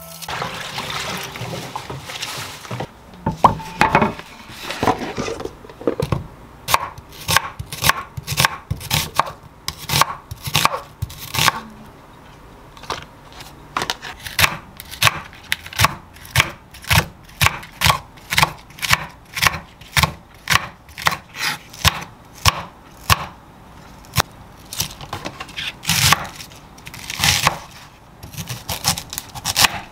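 Kitchen knife chopping green onions and cabbage on a wooden cutting board: sharp knocks about two a second, in runs with short pauses. Water from a kitchen tap runs for the first few seconds, before the chopping starts.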